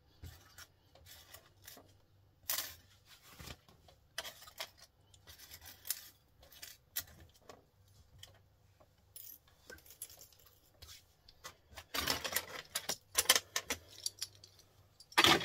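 Small metal connector pins and brass bars clinking and rattling as they are handled and dropped, in scattered light clicks with a busier stretch about twelve seconds in and a sharper clink near the end.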